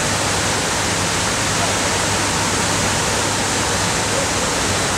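Water falling down the walls of the 9/11 Memorial's reflecting-pool waterfall into the basin: a steady, loud, even rush.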